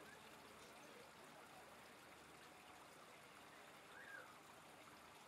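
Faint, steady rush of distant jet engine noise from an Airbus A380 on final approach.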